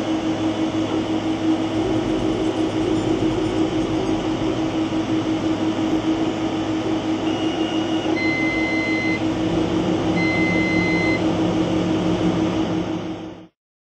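A machine tracing a logo onto a wooden board, running with a steady hum. About eight and ten seconds in it gives two short high beeps, and the sound cuts off suddenly near the end.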